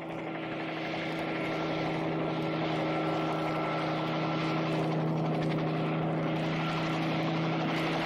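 Aircraft engine droning overhead, growing louder over the first couple of seconds as it approaches and then holding steady.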